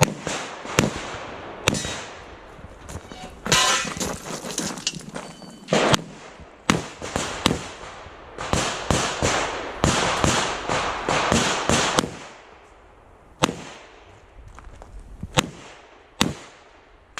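Smith & Wesson 325 Thunder Ranch .45 ACP revolver being fired in a string of shots, some single and some in quick clusters, with short pauses between them.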